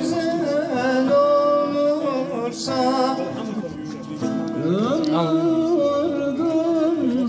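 A man singing a Turkish folk song into a microphone, holding long notes with ornamented, wavering pitch, over a plucked-string accompaniment.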